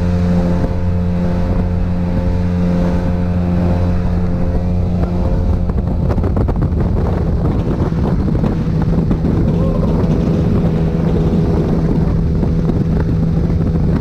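Outboard motor of an aluminium fishing boat running at speed, a steady engine drone with wind rushing over the microphone. About halfway through, the sound turns noisier, with more rushing air over the engine tone.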